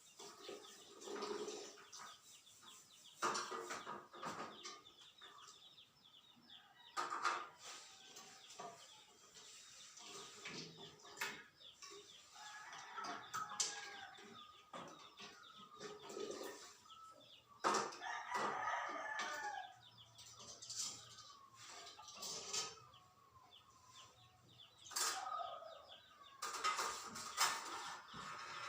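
Tongs lifting sterilized feeding-bottle parts out of the sterilizer and setting them on a cloth-lined tray: scattered light clicks and knocks. A bird calls twice in the background, about halfway through and again a few seconds later.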